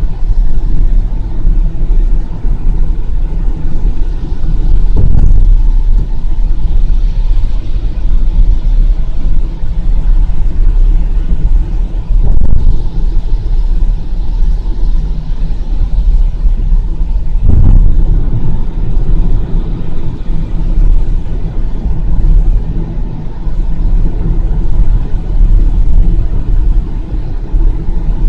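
Steady low rumble of a car cruising on a wet road, heard inside the cabin, with a hiss of spray and three brief thumps.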